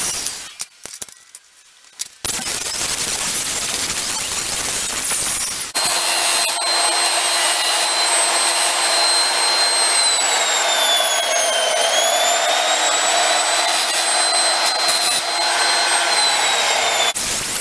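Electric disc grinder grinding a steel bar clamped in a bench vise: loud grinding noise with a brief drop about a second in, then a steady high motor whine whose pitch sags around the middle as the disc is pressed into the metal, and then recovers.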